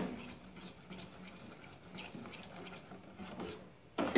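Metal spoon stirring caramel in an aluminium pot: a sharp clink of spoon on pot at the start and another near the end, with faint scraping and ticking as it stirs between.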